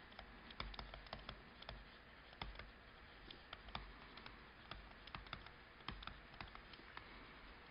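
Faint, irregular light clicks and taps of a stylus writing on a tablet, several in a second.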